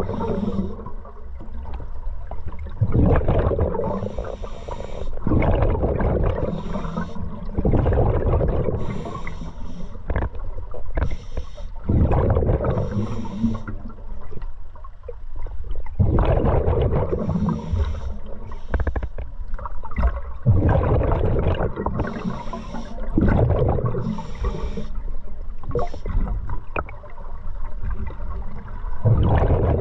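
Scuba diver breathing through an open-circuit regulator underwater: a rumbling burst of exhaled bubbles every three to four seconds, with a hissing inhalation between them.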